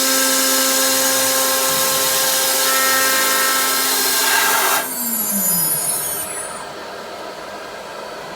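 Spindle of a 3-axis CNC machining center running at high speed with a steady whine and a loud hiss as it mills an aluminium profile. About five seconds in the hiss cuts off and the whine falls in pitch as the spindle spins down, leaving a quieter steady machine noise.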